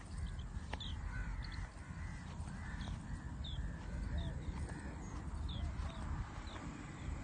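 Birds calling over and over, many short falling chirps and arched calls, over a steady low rumble of wind on the microphone.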